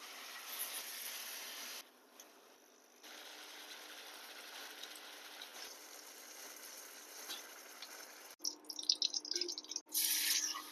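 Steady watery hiss broken by short cuts, then louder irregular rattling and splashing in the last two seconds.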